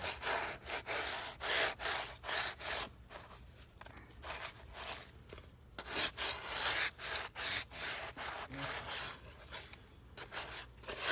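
Blue scrubbing pad rubbing back and forth over the wet, rough surface of a cement fountain bowl in quick scrubbing strokes, about two or three a second, easing off for a couple of seconds in the middle.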